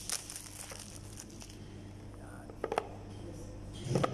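Thin plastic wrap crinkling and a small cardboard box being handled as the wrapping is picked off, with a few sharp clicks, a couple about two-thirds of the way through and a louder cluster near the end.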